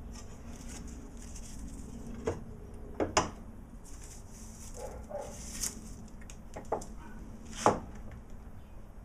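Scattered sharp knocks and clicks of a Stanley hand plane being handled and adjusted on a wooden workbench between planing strokes, the loudest about three seconds in and near the end.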